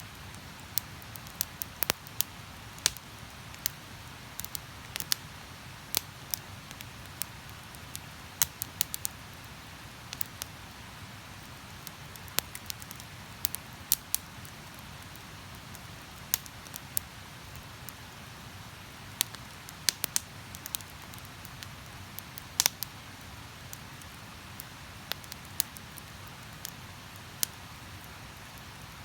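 Wood campfire crackling, with irregular sharp pops and snaps over a steady background hiss.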